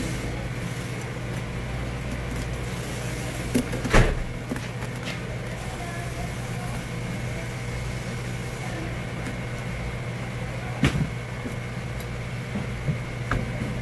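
Steady low machine hum, with a few sharp knocks: a pair about four seconds in (the loudest) and another near the end.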